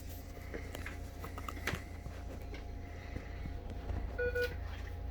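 Faint clicks and handling noises over a steady low hum, with a short double electronic beep a little over four seconds in.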